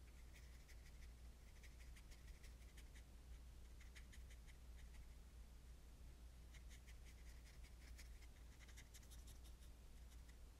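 Faint scratching of a small paintbrush stroking paint onto a taped-down painting sheet, in several short runs of strokes with pauses between. A low steady hum lies beneath.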